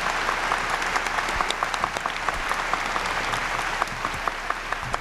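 Large seated audience applauding steadily. The clapping thins out a little over the last second or so.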